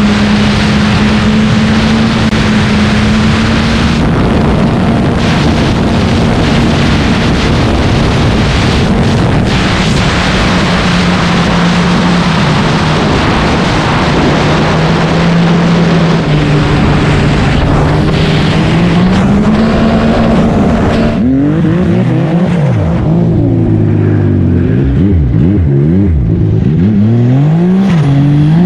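Turbocharged Yamaha Sidewinder snowmobile running at speed, its engine a steady drone under heavy wind rush on the microphone, the pitch sagging a little midway. After about twenty seconds the wind noise falls away and the engine note swings up and down as the throttle is worked on and off.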